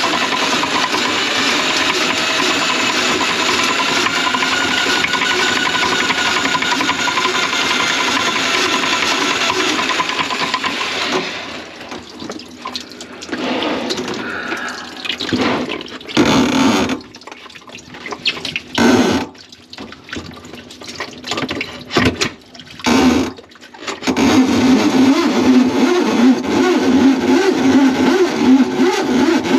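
Electric drain-cleaning machine working its cable through a grease-clogged kitchen sink drain line, with water flowing. Partway through, the motor is run in short bursts with pauses, then runs steadily again.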